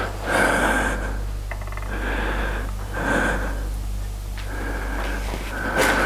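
A person breathing close to the microphone, a noisy breath about once a second, over a low steady hum.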